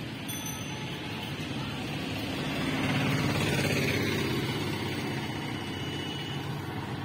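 Engine noise that swells to a peak about three to four seconds in, with a falling pitch as it peaks, then slowly fades.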